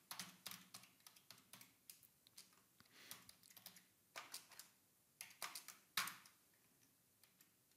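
Computer keyboard typing: faint, irregular key clicks in quick runs, stopping for the last second or so.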